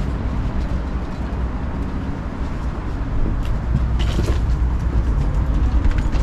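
Wheeled suitcase rolling with a steady low rumble across the floor, with a few short clicks about three and four seconds in.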